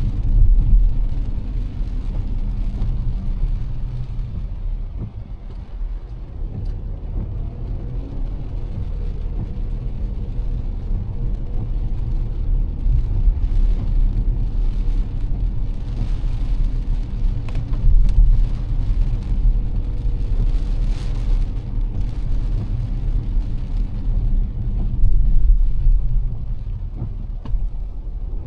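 Car driving through heavy rain: a steady low rumble of engine and tyres on the wet road, with a fainter hiss of rain and spray.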